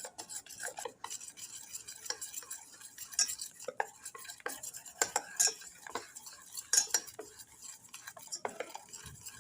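Hand whisk stirring cocoa, sugar and milk in a saucepan, with irregular light clinks of the whisk against the pan.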